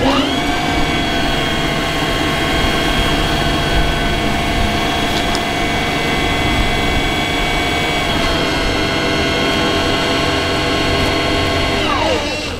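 Air-driven pump of a pneumatic-hydraulic jack under a railcar running: a steady whine of several tones. It spins up at the start, steps slightly lower about eight seconds in, and winds down falling in pitch near the end.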